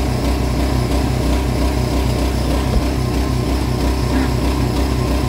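An engine running steadily, a loud, even low drone with a regular pulse.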